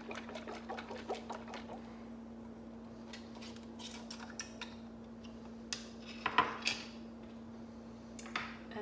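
Small glass jar of oil-and-vinegar salad dressing shaken hard to mix and emulsify it, the liquid sloshing and the jar rattling rapidly for about two seconds. Later a few clinks and knocks as the jar is set down on a tiled counter and its lid handled.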